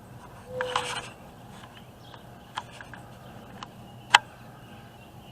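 Scattered faint rubs and sharp clicks, a few between two and a half and three and a half seconds in and a louder single click just after four seconds.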